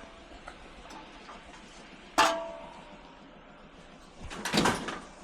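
Scrap metal being handled and loaded: one sharp metallic clang that rings on briefly about two seconds in, then a short clatter of several knocks near the end.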